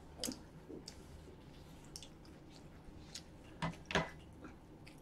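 Faint mouth sounds of someone chewing fried chicken, with scattered soft clicks and two short, louder smacks near the end.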